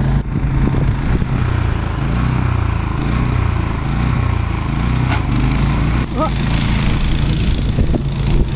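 Steady low engine hum, like an idling vehicle, under a haze of noise, with a short high call about six seconds in.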